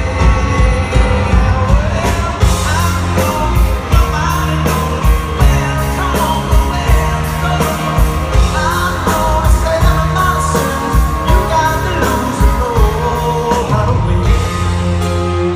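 A rock band playing live, a male lead vocalist singing over bass, keys and a steady drum beat, with cymbals coming through plainly from about two seconds in. Heard from the audience in a large hall.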